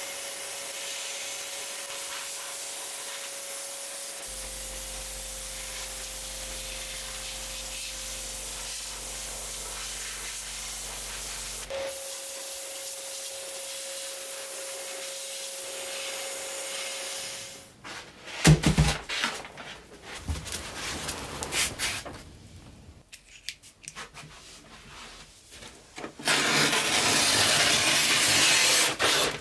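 Small rotary tool with an abrasive stone grinding rust off a thin steel toy-truck part: a steady hiss with a thin motor whine. It is followed by scattered knocks and clicks from handling, and a loud steady hiss near the end.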